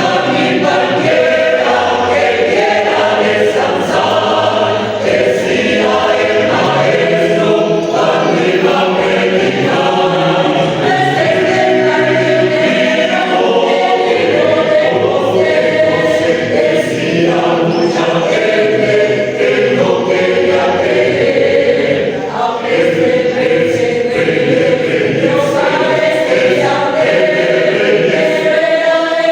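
A choir singing, many voices holding and moving between sustained notes together.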